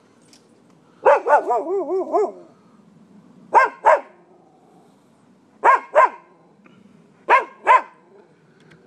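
Dog barking in quick double barks, the pairs coming every couple of seconds. About a second in, the first pair runs into a short, wavering string of yelps.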